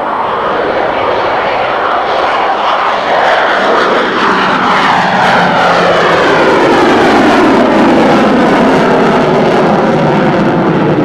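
Grumman F-14 Tomcat jet flying past: loud jet engine noise that swells about three seconds in and holds, with a pitch sweeping downward as it passes.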